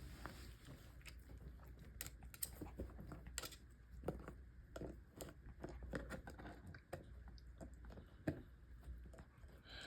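A Pomeranian chewing a dried pig snout treat: faint, irregular crunching and clicks of teeth on the hard chew.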